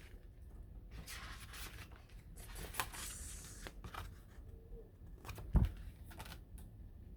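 Pages of an album photo book being turned and handled: paper rustling and sliding with light taps, and one louder thump about five and a half seconds in.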